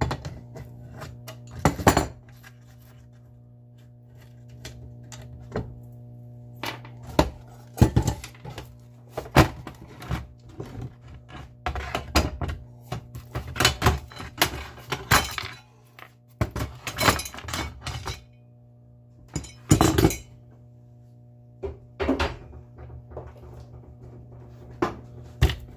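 Metal hardware and hand tools clanking and clinking against a plywood boat seat: an adjustable wrench working the nuts and a steel seat mounting plate being lifted off and set down. The knocks and thunks come at irregular moments, the loudest about 2, 8 and 20 seconds in.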